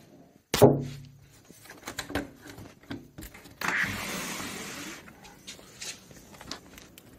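Black bear pawing at a window from a shingled roof. There is a loud thump on the glass about half a second in, then scattered taps and a stretch of scraping from its claws.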